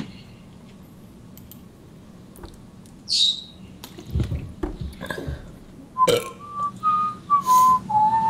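A man whistling a short tune of several separate notes, starting about six seconds in and stepping up and down in pitch. About four seconds in there is a brief low throaty mouth sound.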